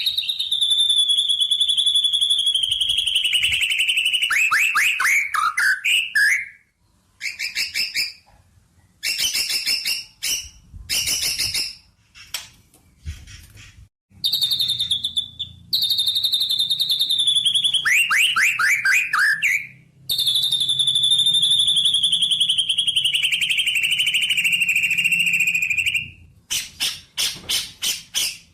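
A songbird singing long, fast, high trills that last several seconds each and slowly fall in pitch, each ending in a quick run of downward-sweeping notes, with shorter bursts of song in between.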